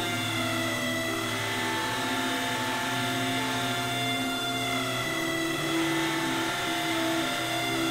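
Electronic music: layered sustained synth tones over a buzzing drone, slowly shifting, with no drum beat.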